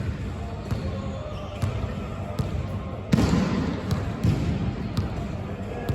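A basketball bouncing on a hard indoor court floor: irregular thuds roughly once a second, the loudest about three seconds in.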